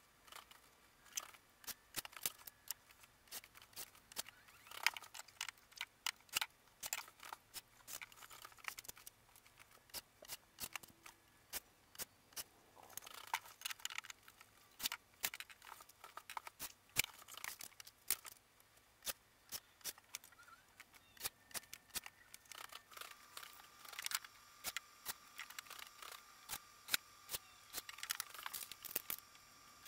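Irregular sharp clicks and taps of cabinet doors and hinge hardware being handled and taken off, coming in dense clusters at times. A faint steady tone comes in about three-quarters of the way through.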